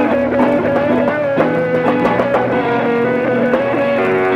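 Live band music led by electric guitar: a held lead line that slides slowly in pitch over guitar accompaniment.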